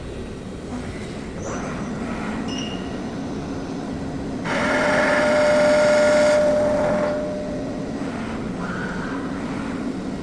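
CNC machining center running, with a louder cutting pass of about three seconds starting near the middle that carries a steady whine, over a constant machine hum and a few light metallic pings.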